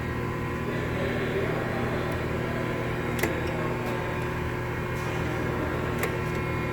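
Steady hum of workshop machinery, holding several fixed tones, with a couple of faint clicks about three and six seconds in.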